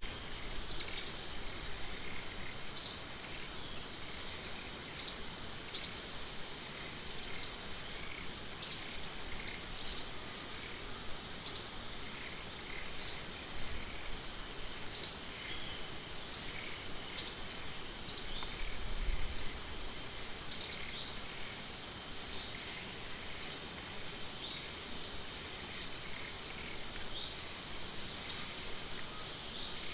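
Short, high bird chirps repeat roughly once a second, often two in quick succession, over a steady high-pitched insect drone.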